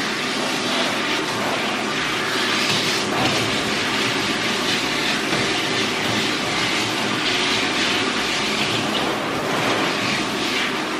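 Handheld shower sprayer running, its water spraying onto a wet dog's coat and splashing in a stainless steel grooming tub: a steady rush of water that swells and eases a little as the spray moves.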